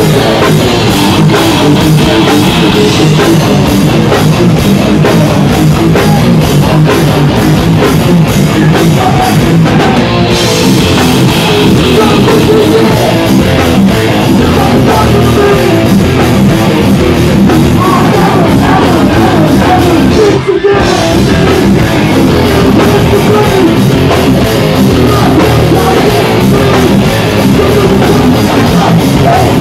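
Live hardcore punk band playing at full volume: distorted electric guitars, pounding drums and vocals, recorded very close to the stage. The sound drops out briefly about two-thirds of the way through.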